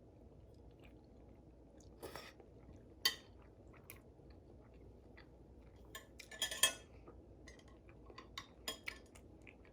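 Eating a bowl of noodles: a utensil clicking and scraping against the bowl, with chewing, heard as scattered short sounds; the loudest cluster comes a little past the middle.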